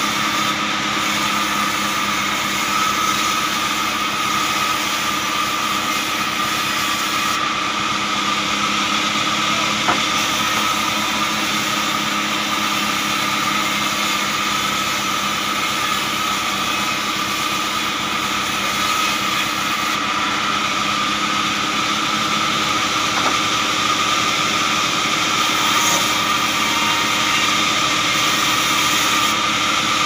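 Band saw mill running steadily as a curved log is fed through the blade, with a steady drone and a high whine from the belt-driven saw.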